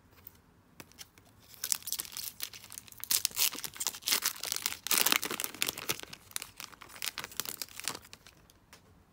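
Foil wrapper of an O-Pee-Chee hockey card pack being torn open and crinkled by hand: a dense run of crackles lasting about six seconds, loudest around the middle, then dying away as the cards come out.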